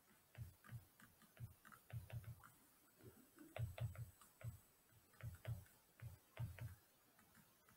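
Faint, irregular taps and clicks of a stylus writing on a tablet screen.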